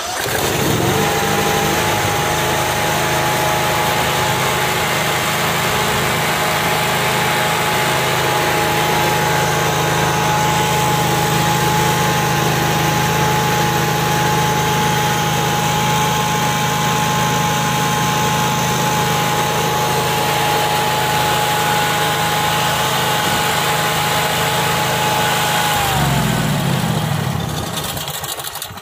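Elemax SH11000 generator's Honda GX620 V-twin engine electric-started with the choke on, catching at once and running steadily, with a steady high whine over the engine hum, on its test run after an oil change. Near the end it runs down to a stop.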